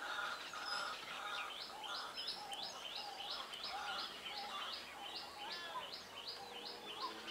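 Birds calling: a short high note repeated about three times a second, starting about a second and a half in, with other lower chirps throughout, over faint background noise.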